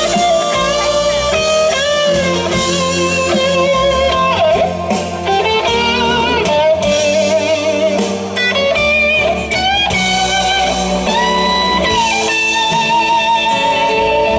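Live band playing an instrumental passage: an electric guitar lead with bent, wavering notes over the band's chords and bass.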